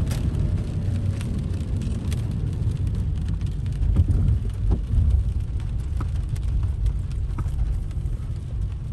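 Steady low rumble inside a Toyota Corolla GLi 1.3 cabin, its engine and tyres running on a wet road, with scattered taps of rain hitting the windscreen and body.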